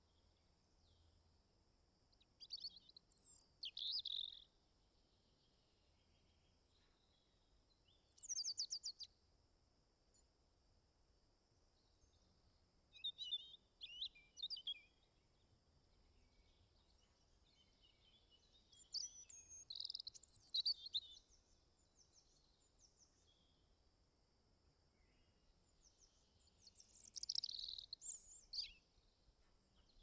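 Small songbirds giving bursts of high-pitched chirps and calls, about six bouts a few seconds apart, with quiet in between.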